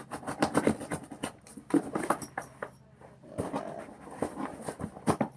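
Hands working at an Amazon box's plastic overwrap and cardboard to get it open: irregular crinkling, scraping and tapping.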